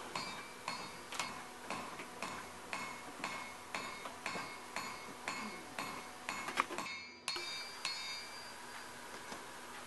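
Cross-peen hammer striking red-hot steel on an anvil, spreading an axe blade: steady blows about two a second, each with a short metallic ring. There is a brief break about seven seconds in, and the blows thin out near the end.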